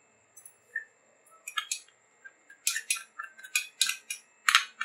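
A metal spoon clinking against glass bowls while spice powder is scooped out and tapped off onto the meat: about a dozen light, ringing clinks, coming closer together in the second half.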